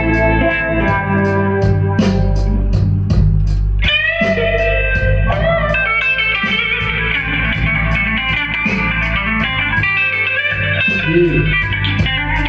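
Blues-rock band playing live: an electric guitar lead with sustained, bent notes over bass guitar and drums keeping a steady cymbal beat.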